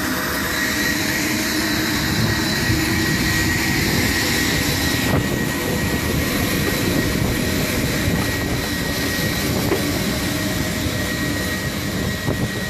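Auxiliary power unit of a Lockheed WP-3D Orion running, a small gas turbine: a loud, steady roar with a high whine held on one pitch.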